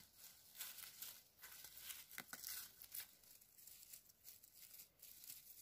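Faint, irregular rustling and crackling of hands picking chanterelle mushrooms from the forest floor, brushing dry needles, twigs and leaves.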